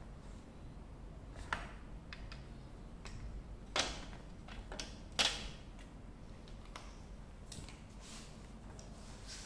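Light clicks and knocks of plastic and metal as a Makita 18V cordless band saw, with its blade covers open, is handled and turned over. A few separate knocks come, the loudest about five seconds in.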